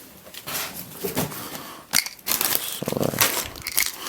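Packaging crinkling and rustling as it is handled, with irregular sharp crackles.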